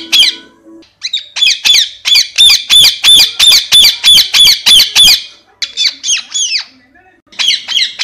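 Rose-ringed parakeet calling in a rapid series of sharp, high squawks, about three a second. The series starts about a second in, thins out past the middle, pauses briefly and starts again near the end.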